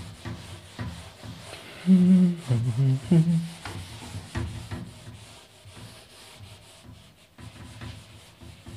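Whiteboard eraser wiping marker writing off a whiteboard: repeated rubbing strokes. About two seconds in, a brief louder low-pitched hum lasts for about a second and a half.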